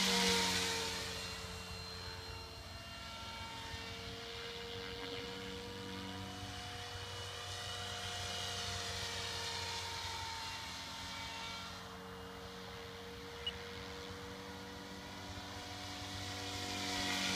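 MSH Protos 500 electric RC helicopter with a Scorpion brushless motor in flight, its rotor and motor giving a steady pitched hum. The hum swells as the helicopter passes close right at the start and again near the end, and is fainter in between.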